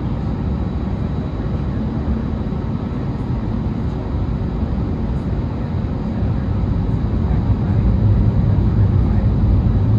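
Cabin noise inside an Airbus A320neo-family jet: a steady engine and airframe rumble that grows louder about seven seconds in.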